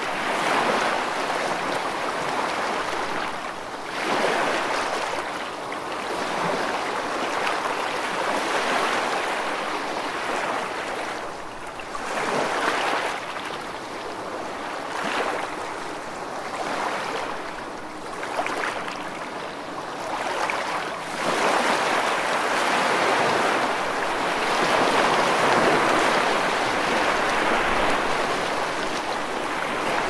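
Waves washing in: a steady rush of water that swells and falls back every few seconds, loudest in a long surge in the second half.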